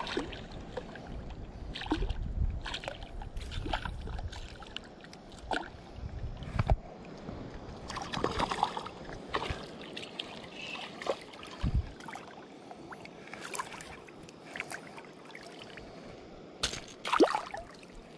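A hooked smallmouth bass splashing at the surface as it is reeled in, with the reel turning and scattered clicks and knocks from handling the rod and fish. There are sharp knocks a bit before seven seconds in and near the end.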